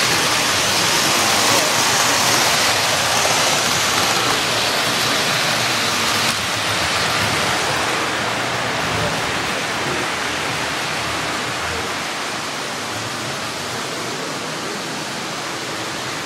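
A steady, loud rushing hiss that slowly grows softer.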